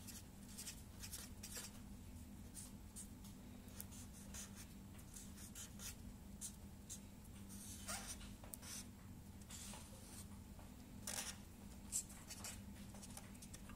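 Black felt-tip marker drawing on a sheet of paper: faint, scratchy strokes in quick irregular runs, with a few louder strokes in the second half.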